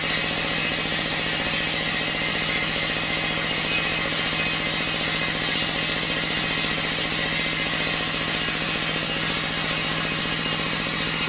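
Engine of a circular log saw (serkel kayu) running steadily at an even speed with a rapid pulsing beat, the saw not cutting.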